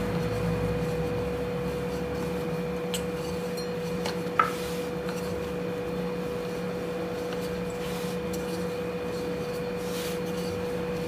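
Rolling pin rolling out a stuffed paratha on a rolling board: soft rubbing with a few faint ticks and one sharp click about four seconds in, over a steady low hum.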